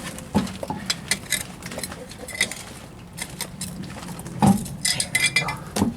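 Irregular light metal clinks and knocks as a car wheel is worked onto the hub studs, with a louder cluster of knocks near the end.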